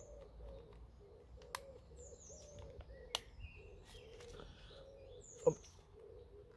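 A pigeon cooing steadily in the background, with a small bird chirping now and then. Over it come a few sharp plastic clicks as the vacuum cleaner's housing tabs are worked, the loudest about five and a half seconds in.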